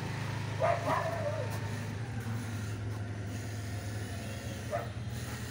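A dog barking: two short barks about a second in and a fainter one near the end, over a steady low hum.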